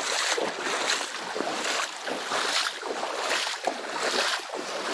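Floodwater splashing and sloshing in repeated uneven surges.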